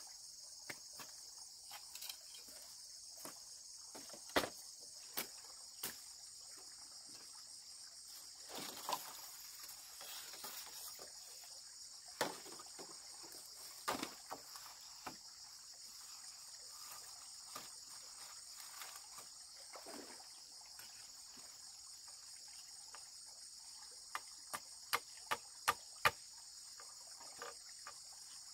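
A steady, high insect chorus, with scattered sharp knocks and a quick run of five knocks about half a second apart near the end.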